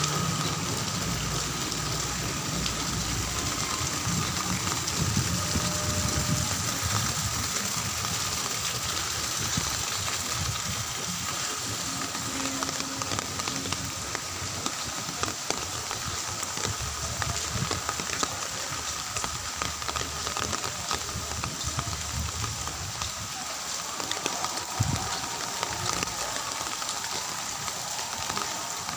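Heavy rain falling steadily, a dense hiss full of small drop ticks, with a low rumble that comes and goes underneath.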